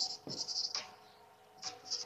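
Marker pen squeaking and scratching on a whiteboard as words are written, in two short runs of strokes with a pause of about half a second between them.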